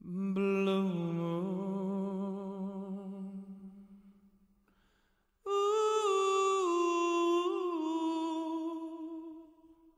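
Unaccompanied humming in two long phrases with a short gap between them. The first is low and the second starts higher; each holds its notes, steps down in pitch and fades away.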